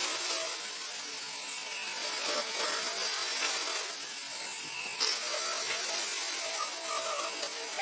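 Bandsaw running and cutting through a small bark-covered log, a steady hiss of the blade in the wood.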